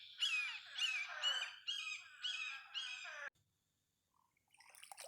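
Spadefoot toads calling in a chorus: a run of about six short, descending, bleat-like calls, roughly two a second, that cuts off suddenly a little over three seconds in. These are males' breeding calls; a brief faint noise follows near the end.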